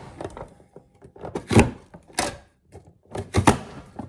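Hand-pressed plastic vegetable chopper pushed down hard, forcing onion pieces through its dicing grid: three sharp clacking thuds of the lid hitting home.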